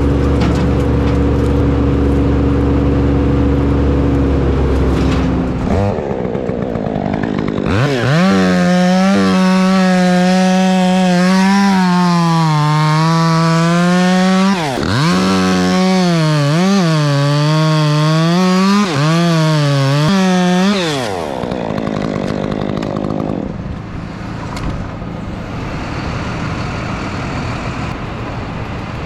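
A chainsaw at full throttle cutting wood for about thirteen seconds, its pitch sagging and recovering as it loads in the cut, easing off briefly twice. It is preceded by a steady low engine hum and followed by a duller engine drone.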